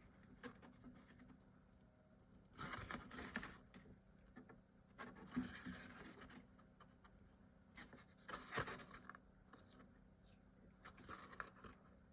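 Faint handling of paper and chipboard craft pieces: a few brief scraping, rustling strokes and small clicks as a printed chipboard piece is lined up and pressed into place on the box.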